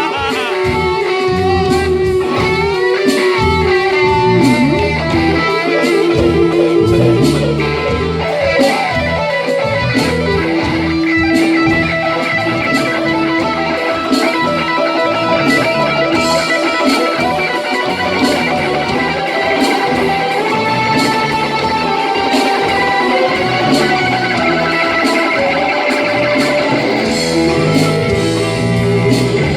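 Live rock band music led by electric guitar, with long held and bending lead notes over bass and regular drum hits.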